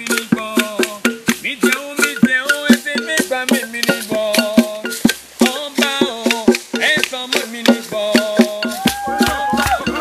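Music with a quick, steady percussion beat under a melody.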